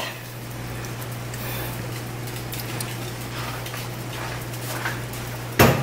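Low steady hum and faint hiss of the kitchen, with a few light ticks and one sharp clank of kitchenware near the end.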